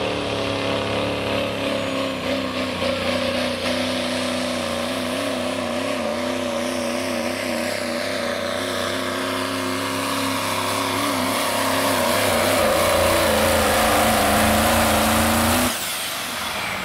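Modified diesel Chevrolet pickup pulling a truck-pull sled, its engine held at high revs under full load with the pitch wavering as it claws down the track. The engine drops off suddenly near the end as the driver lets off.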